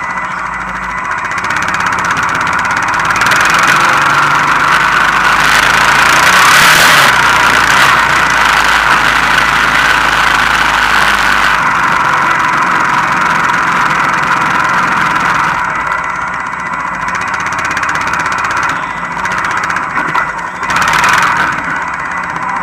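Honda Foreman 450 ATV's single-cylinder engine running while towing, heard close from the quad's rack, a steady drone with a rushing noise that swells for several seconds in the first half.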